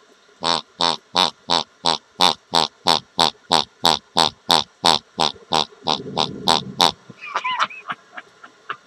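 Toy pig squealing in a fast, even run of about twenty squeaky oinks, about three a second, which stops about seven seconds in; a short rumble sits under the last few.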